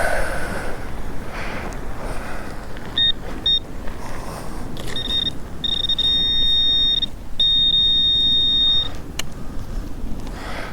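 Minelab Equinox 800 metal detector sounding on a target: two short high beeps, then longer held tones of the same pitch, over a freshly dug coin, which turns out to be a pound coin.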